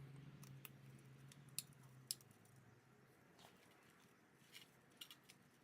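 Near silence: a faint low hum that fades out after about two seconds, with a few faint, sharp clicks scattered through.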